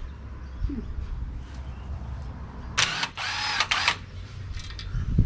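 Rattle gun (impact wrench) loosening a wheel hub bolt in short bursts lasting about a second, some three seconds in.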